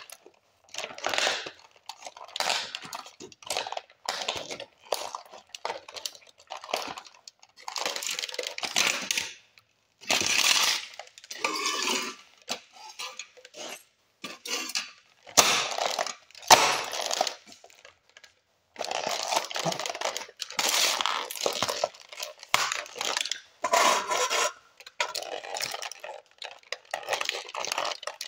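Toy cars being crushed and ground underfoot against a concrete floor: crunching and cracking of the car bodies and loose parts, in repeated bursts with short pauses between.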